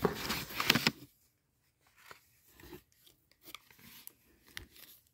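Brown kraft packing paper crinkling as products and small cardboard boxes are handled: a loud crinkle in the first second, then faint scattered rustles and light taps.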